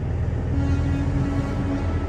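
Heavy truck's diesel engine rumbling, with a single steady horn tone held from about half a second in until near the end.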